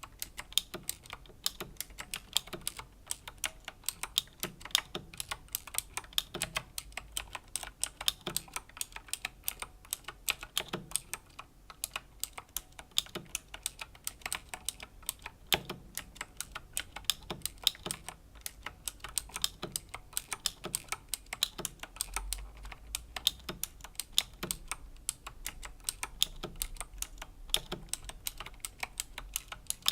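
Slow, steady typing on a Razer BlackWidow Chroma V2 mechanical keyboard with Razer Green clicky switches: a continuous run of sharp key clicks, several a second, with a short pause about eleven seconds in.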